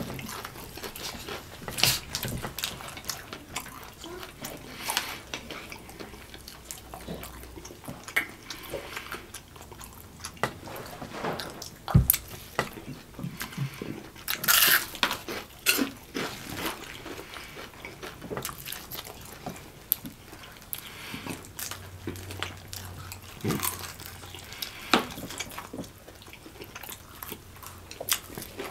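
Fried chicken legs being eaten close to the microphone: wet chewing, lip smacks and meat pulled off the bone, heard as a run of scattered small clicks and smacks. One sharp knock stands out about twelve seconds in.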